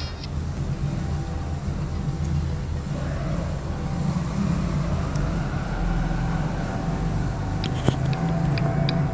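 Music played through a Hifuture FlyBuds wireless earbud and picked up by a clip-on mic held against it: muffled and bass-heavy, with a single sharp click about eight seconds in.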